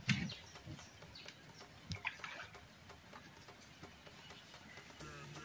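Water splashing and dripping as a fishing net is hauled by hand out of a lake into a canoe, with a few short knocks, the loudest right at the start. Background music comes in near the end.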